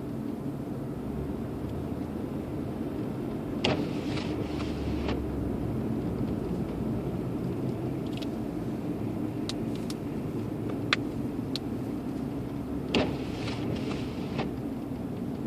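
Steady car cabin noise while driving: engine and tyre hum, with a few short clicks and knocks scattered through it.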